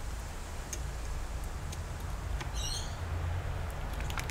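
Steady low hum with a few faint clicks, and a brief high-pitched wavy chirp a little past the middle.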